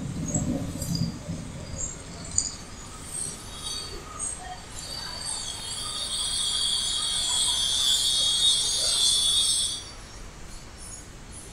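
Background chirping of small animals: scattered short high chirps at first, then a dense, steady high-pitched chorus from about five seconds in that drops away near ten seconds.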